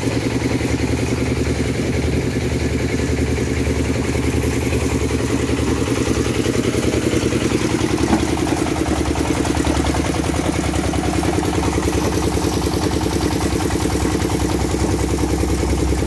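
Mini stone crusher running steadily, its engine-driven flywheel pulleys turning with a continuous even mechanical pulse and clatter of the crusher and conveyor. One sharper knock comes about halfway through.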